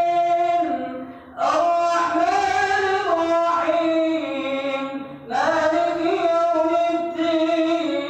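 A man's voice reciting the Qur'an in a long, melodic chant into a microphone, holding and gliding between notes, with brief breath pauses about a second in and again about five seconds in.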